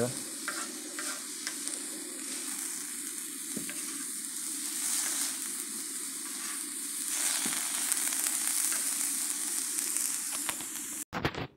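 Skirt steak, onions and bell peppers sizzling steadily on a hot Scottle disc griddle, with a plastic spoon stirring and scraping through them. The sizzle cuts off about eleven seconds in.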